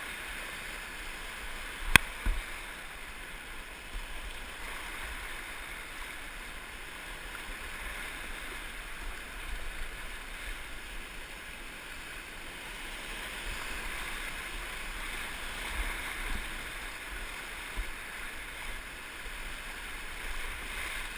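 River rapids rushing around a canoe, a steady hiss of fast white water, with one sharp knock about two seconds in.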